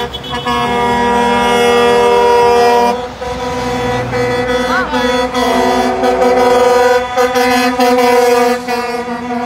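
Truck air horns blown in long, overlapping blasts as a convoy of trucks passes, several steady pitches sounding together like a chord, with a brief dip about three seconds in.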